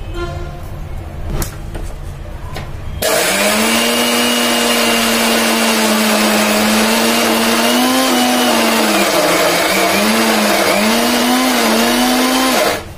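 Electric mixer grinder grinding soaked urad dal dry, with no water added, into a thick paste. It starts suddenly about three seconds in, runs loud and steady with its pitch wavering in the last few seconds, and stops just before the end. A few light clicks come before it starts.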